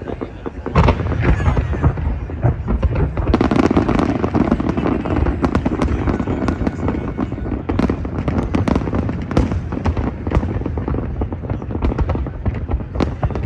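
Large aerial fireworks display: a dense, continuous barrage of bangs and crackling bursts that grows louder about a second in.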